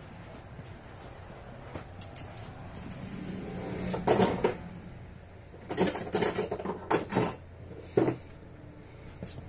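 Hand tools clinking and knocking on metal bolts and brackets as a bolt is tightened on a garden-tractor attachment: scattered clinks, a louder pair about four seconds in and a quick run of knocks about six to seven seconds in.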